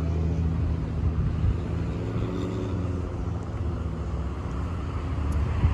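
Low, steady engine hum, strongest at first and slowly easing off.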